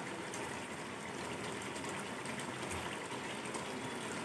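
Green chicken curry simmering in a pot over a gas flame: a steady hiss with faint bubbling pops.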